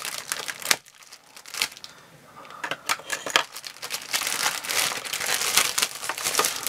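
Clear plastic shrink-wrap on a magazine crinkling and tearing as it is slit with a small knife and pulled off. The crackling goes quieter about a second in and turns dense and continuous from about four seconds, as the wrap is peeled away.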